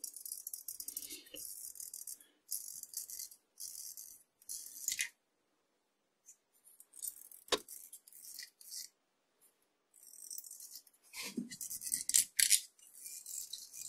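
Box cutter blade scraping dried, crystallized oil residue off metal lathe parts in short repeated strokes, with a pause and a single sharp click midway before the scraping resumes.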